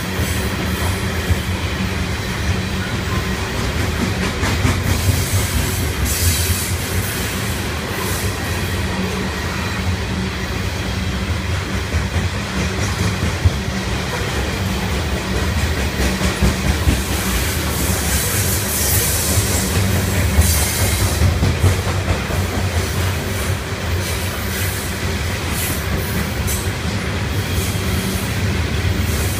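CSX coal train's hopper cars rolling past: a steady low rumble of wheels on rail, with clicks over the rail joints and brief higher-pitched wheel noise now and then.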